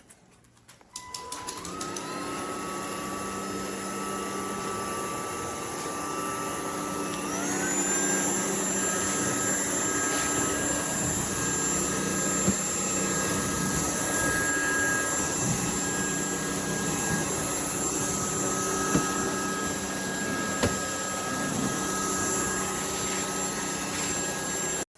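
UNINELL UV3 cordless stick vacuum's motor: after a few clicks about a second in it spins up with a rising whine, steps up to a higher speed about seven seconds in, then runs steadily with a high whine and a few small ticks.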